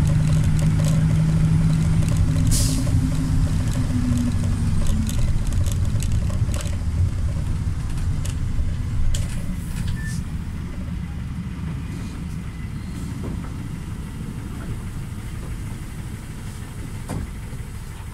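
Volkswagen Volksbus 9-160 city bus engine heard from inside the cabin. Its drone dies down gradually as the bus slows to a stop. Light clicks and rattles from the bus interior are scattered throughout.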